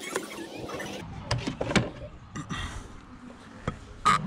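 Scattered plastic clicks and knocks as the air intake duct of a BMW E39 520d is worked loose by gloved hands, with a sharper click near the end.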